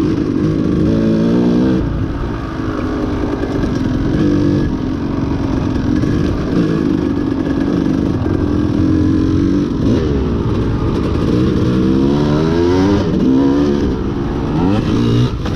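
Off-road motorcycle engine being ridden hard, its pitch rising and falling over and over as the throttle is opened and closed.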